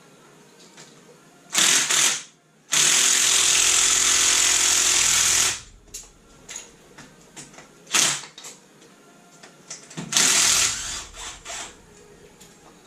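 A power tool is run in bursts: a short one, then a long one of nearly three seconds, a brief one, and a final run about ten seconds in.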